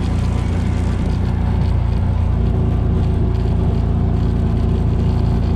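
Four-wheeler (ATV) engine running steadily as it rides along, a constant low drone.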